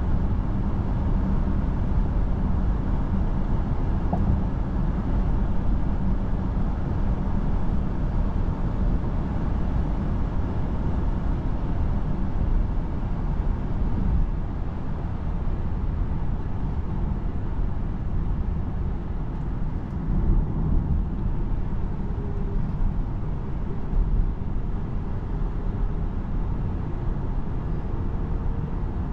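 Inside the cabin of a Citroen C5 Aircross 1.6 plug-in hybrid driving at road speed: a steady low rumble of road, tyre and drivetrain noise. A faint whine comes in over the last few seconds.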